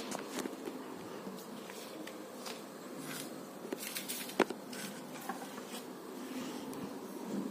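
Light clicks and taps over faint room noise, the sharpest about four and a half seconds in.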